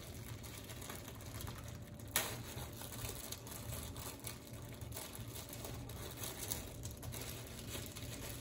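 Faint rustling and small ticks of cardboard and plastic packaging being handled, with one sharper click a little after two seconds in, over a steady low hum.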